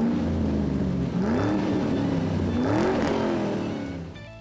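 Car engine revving, its pitch rising and falling twice before fading out near the end.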